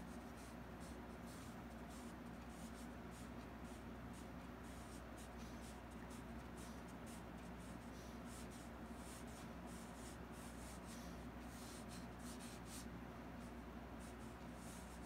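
Faint scratching of a fine paintbrush stroking paint onto a canvas in short, irregular strokes, over a low steady hum.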